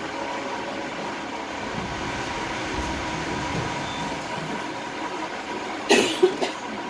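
Glass-bottom boat's engine running with a steady hum and drone, heard from inside the hull. About six seconds in, a few short loud bursts stand out over it.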